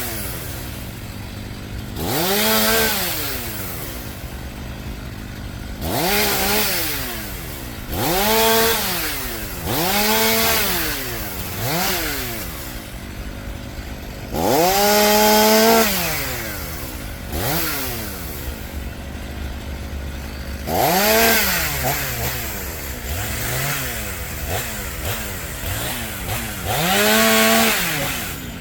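Chainsaw limbing a fallen bur oak, revved up for short cuts about eight times and dropping back toward idle between them. The longest cut comes about halfway through.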